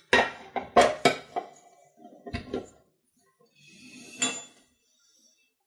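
Stainless steel mixing bowl clanking against a stand mixer as it is set on the base and fitted: three sharp metallic knocks in the first second, two lighter knocks a little later, then a brief scrape of handling.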